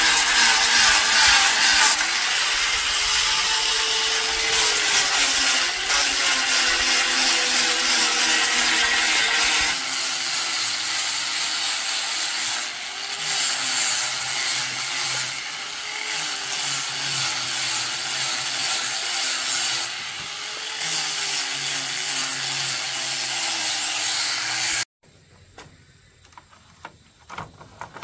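Electric angle grinder with an abrasive disc grinding wood, its motor whine dipping and rising in pitch as it is pressed into the work. It cuts off abruptly near the end, leaving a few faint knocks.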